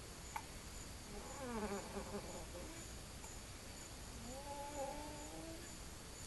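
A young child's stridor with croup: two drawn-out, pitched breath sounds, the first wavering up and down in pitch about a second and a half in, the second steadier about four seconds in.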